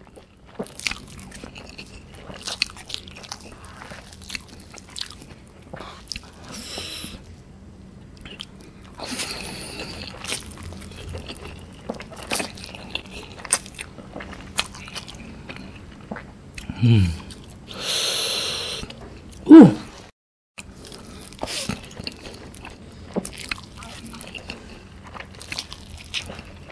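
Close-up eating sounds from a mouthful of saucy, cheesy instant ramen noodles eaten with chopsticks: wet chewing and lip-smacking clicks throughout, broken by several noodle slurps, the longest about two-thirds of the way through. Just around it come two short gliding pitched sounds, the second being the loudest sound.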